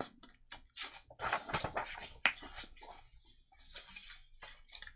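Sheets of paper and card rustling and tapping as they are handled and shuffled, in a run of short, dry rustles and light taps.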